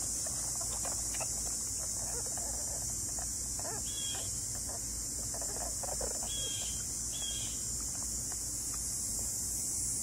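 Steady evening chorus of crickets, a continuous high-pitched hiss, with a few short high chirps scattered through it.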